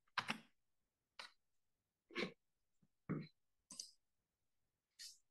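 About six short, faint breaths and small throat noises from a person at a microphone, spaced roughly a second apart with dead silence between them.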